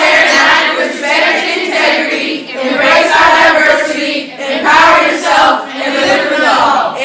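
A group of teenage students singing together in unison, in loud phrases with short breaks between them.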